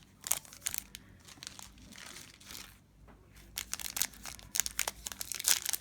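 Foil wrapper of a trading card pack crinkling and tearing in the hands, in sharp irregular crackles that come thick and fast near the end.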